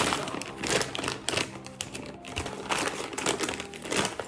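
Plastic bags crinkling and fishing lures clicking together as hands rummage through a fishing waist pack to pull out a spoon lure. The sound is a run of quick rustles and small clicks.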